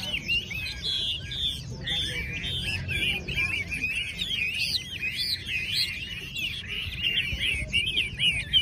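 Many caged Chinese hwameis singing at once: a dense, overlapping chorus of rapid, warbling whistled phrases.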